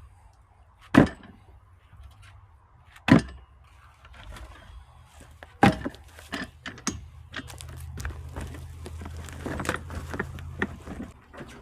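Firewood being split: three sharp, loud strikes about two seconds apart, then a low steady hum with scattered knocks and clatter of wood.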